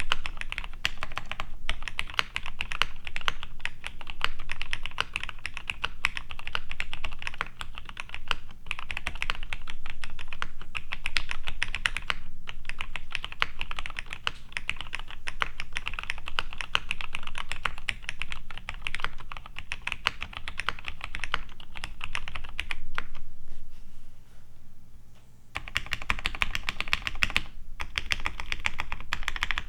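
Steady fast typing on a vintage plateless Cherry G80-1838HPU mechanical keyboard with lubed Cherry MX Black Hyperglide linear switches and GMK keycaps: a dense run of key clacks. It breaks briefly about 9 and 12 seconds in, and there is a longer lull from about 23 to 25 seconds in.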